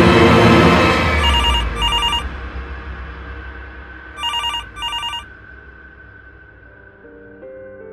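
A telephone ringing twice, each ring a quick double burst, with about three seconds between rings. A loud dense swell of sound dies away over the first second or so, and a faint held tone lingers after the rings.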